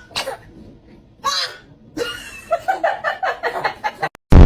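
A baby's soft short vocal sounds and breaths, then a sudden very loud sneeze bursting out right at the end.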